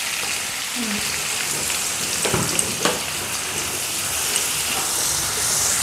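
Sliced onions sizzling in hot oil in a wok while being stirred with a spatula, a steady frying crackle, with two sharper knocks about halfway through.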